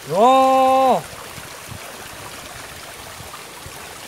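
A loud, drawn-out exclamation "Ohh" lasting about a second near the start, then the steady rush of a shallow rocky stream.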